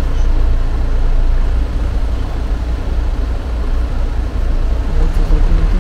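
Steady low rumble of a car heard from inside its cabin as it creeps along slowly: engine and road noise.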